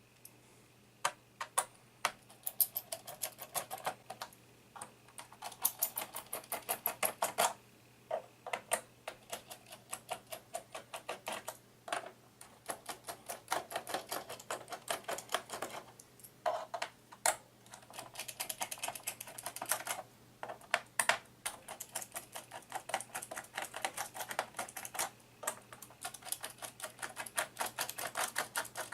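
Rapid runs of light clicking, many clicks a second in bursts of a few seconds, with louder single clicks between.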